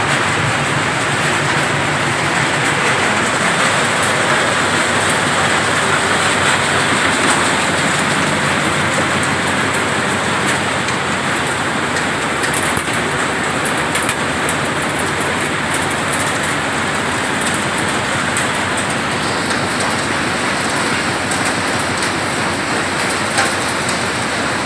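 Groundnut grading machine in a seed mill running steadily, with a constant rattle of shelled groundnut kernels pouring through it.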